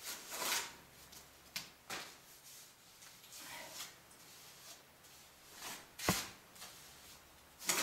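Intermittent scrapes and knocks of a small trowel and pumice stone as rehydrated clay is worked into a gap in a wall, with a sharper knock about six seconds in.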